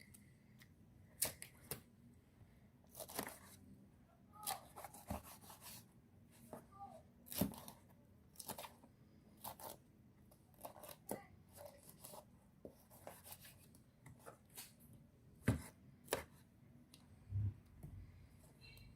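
Kitchen knife cutting pineapple into cubes on a cutting board: faint, irregular knocks of the blade, about one a second.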